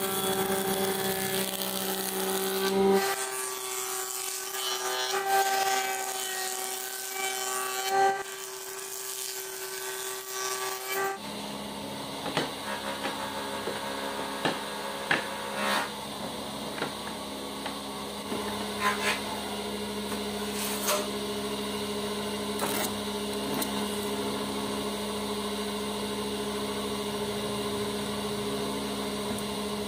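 Electric woodworking machinery running with a steady motor hum: a jointer-planer surfacing a wooden board at first, then a steady hum under the short clacks and knocks of wooden strips being set down and handled from about eleven seconds in.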